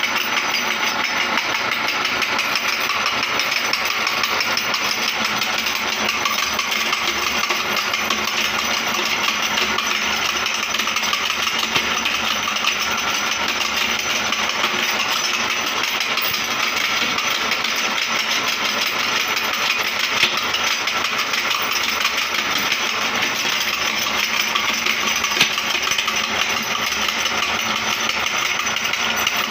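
Glass bangles being crushed in a metal meat grinder: a steady, unbroken crunching and rattling of breaking glass against the grinder's metal parts.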